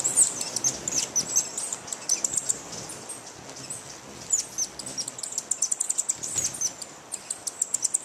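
Booted racket-tail and other hummingbirds giving high, thin chips and twitters, some dropping in pitch, in quick runs: the calls of hummingbirds defending a food source.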